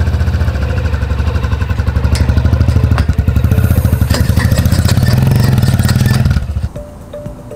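Motor vehicle engine running loudly at steady revs with a fast, even pulse. It cuts off abruptly about six seconds in.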